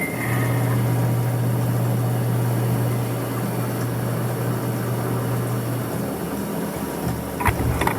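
Steady low hum of a Kaltenbach structural-steel machine's motor running, changing about six seconds in, with a couple of sharp knocks near the end.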